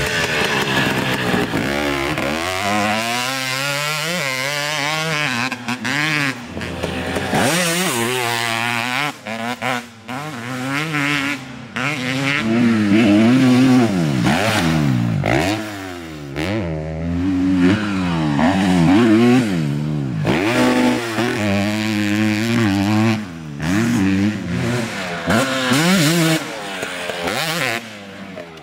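Dirt bike engines revving up and falling back again and again as the throttle is worked around a motocross track, with a few brief drops where the throttle is shut off.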